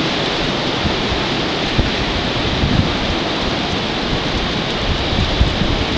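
Strong hurricane wind blowing steadily, with gusts buffeting the microphone in rough low thumps.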